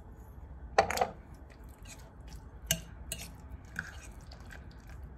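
A metal fork clinking against a glass mixing bowl of egg salad a few times as it is stirred, the loudest clink about a second in.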